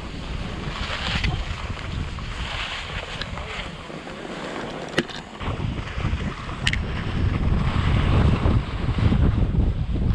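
Wind buffeting a pole-mounted camera's microphone while skiing downhill, with the hiss of skis sliding on snow. The low rumble gets much stronger about halfway through as the run picks up speed, and a couple of sharp clicks come through.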